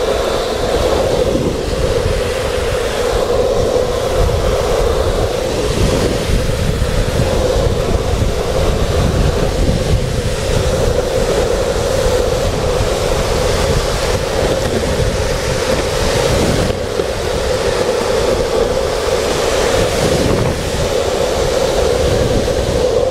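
Longboard wheels rolling fast on asphalt, a steady hum under heavy wind buffeting on the microphone.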